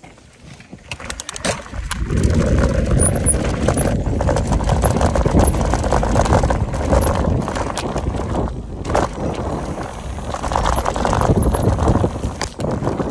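Mountain bike rolling fast down a dry dirt trail, heard from the handlebar: a steady rush of tyre noise and wind with rattling and clicking from the bike, building from quiet to loud about two seconds in.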